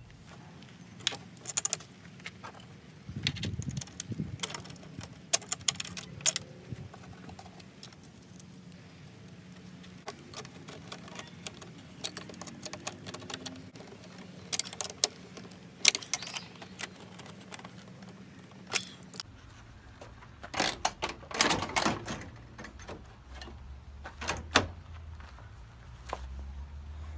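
Irregular metallic clinks, clicks and rattles of hand tools and bolts being handled as a train air horn is bolted into place, coming in scattered clusters with a denser clatter about three-quarters of the way through.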